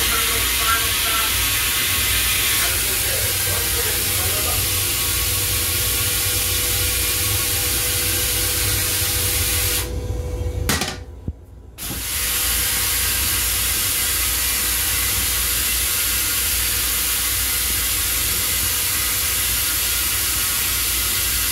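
Steady hiss of the M7 rail car toilet's flush spray. It cuts off about ten seconds in and starts again a couple of seconds later, over a constant low rumble.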